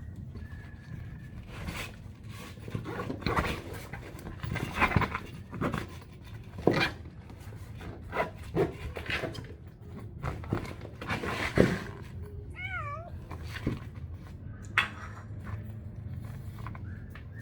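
A frightened cat moving and being handled, with scattered knocks and rustles, and one short wavering cry about two-thirds of the way through.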